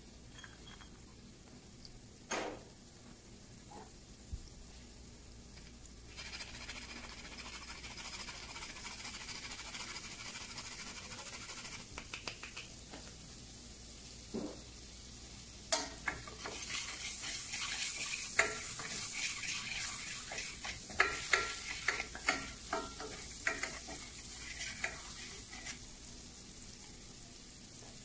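Vegetables sautéing in butter in a frying pan: a sizzle that starts about six seconds in and grows louder past the middle, with a utensil stirring and knocking against the pan now and then.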